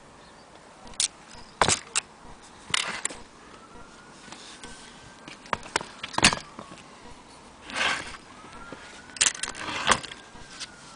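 Aluminium Featherweight Blick (Blickensderfer) typewriter being typed on slowly: single sharp key clacks at irregular intervals, with a couple of short rattling strokes of the mechanism. A faint wailing tone rises and falls twice in the background.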